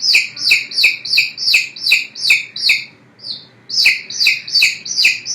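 Baby chick peeping: a fast, even run of short high peeps, each falling in pitch, nearly three a second, with a brief break about three seconds in.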